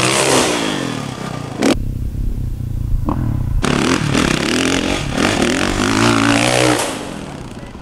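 Motocross dirt bike engine revving hard, its pitch climbing and dropping repeatedly as the rider works the throttle and gears. There is an abrupt change about two seconds in, and the engine fades away near the end.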